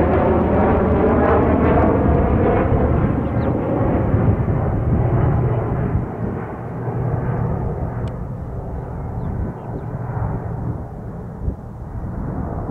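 An aircraft passing and moving away: loud engine noise whose tones fall in pitch, then fading and growing duller after about six seconds.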